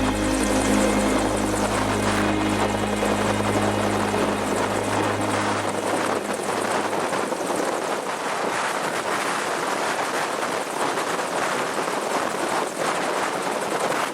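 Bell UH-1 Iroquois helicopter running steadily, turbine and rotor noise. The last chord of a song fades out under it over the first few seconds.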